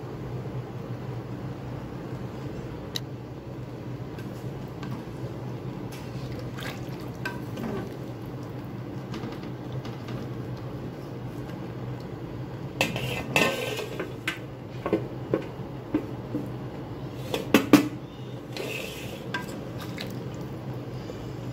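Wooden spatula stirring and turning chicken pieces in broth in an aluminium pressure cooker. It knocks and scrapes against the pot a dozen or so times in the second half, over a steady low hum.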